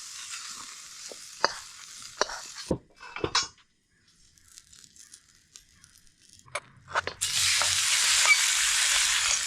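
Stir fry sizzling in a pan on a camp stove, with a few sharp clacks of a utensil against the pan. The sizzling dies away for a few seconds, then a loud, steady sizzle starts suddenly about seven seconds in.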